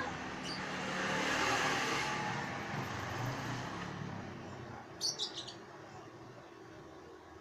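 A motor vehicle passes, swelling and then fading over the first few seconds. About five seconds in, a bird gives a quick run of high, sharp chirps.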